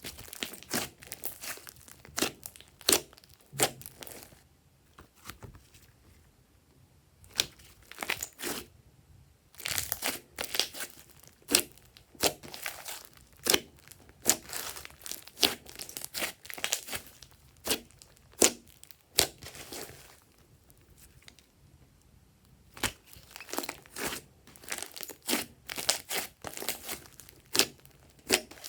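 Glossy slime being squeezed and stretched by hand, giving clusters of sharp, sticky clicks and crackles with a few short pauses between handfuls.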